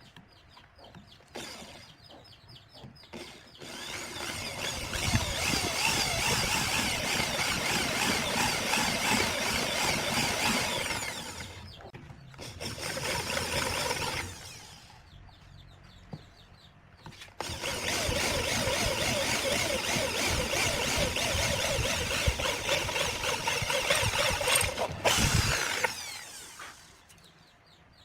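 Angle grinder working wood in three runs: a long one starting about four seconds in, a short one around twelve seconds, and another long one from about seventeen seconds, with quieter pauses between.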